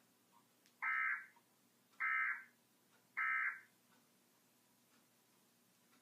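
Emergency Alert System end-of-message code from a TV: three short digital data bursts about a second apart, marking the end of the national EAS test broadcast.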